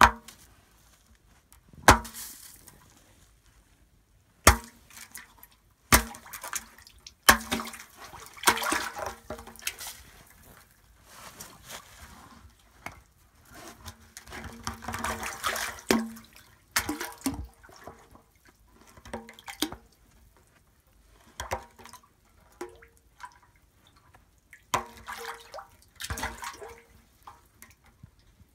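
A neodymium fishing magnet on a rope striking the thin ice in a well, a string of sharp knocks and cracks as the ice breaks, then splashing and sloshing as the magnet works among the broken ice pieces in the water.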